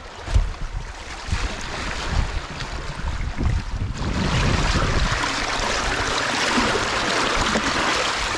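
Sea water rushing and splashing around a plastic basket held in the water over the side of a boat, with wind buffeting the microphone. The rush grows louder and steady about four seconds in.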